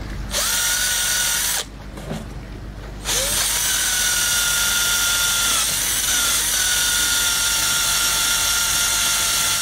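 Cordless drill spinning a wire brush against a metal propeller hub, scouring it clean. It makes a short run, stops for about a second and a half, then runs steadily with a high whine.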